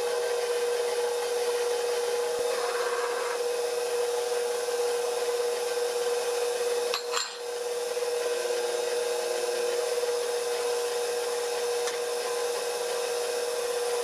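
KitchenAid Professional 600 bowl-lift stand mixer running steadily at one even pitch, its flat beater creaming butter and sugar in the stainless steel bowl. A brief dip in the sound comes about halfway through.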